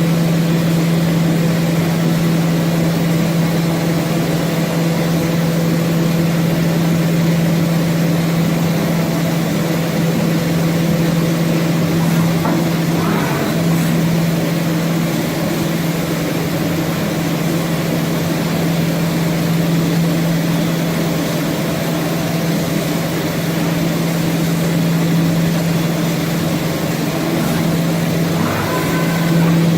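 HOMAG BOF 41/K CNC machining centre running with a loud, steady machine hum, with a brief change in pitch about twelve seconds in and again near the end.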